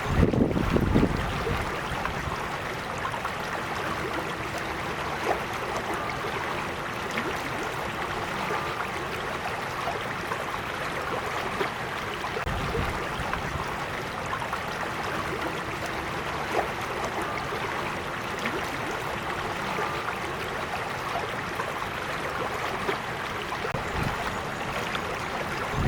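Small creek flowing steadily, a continuous rushing of water, with brief low rumbles near the start and again about halfway through.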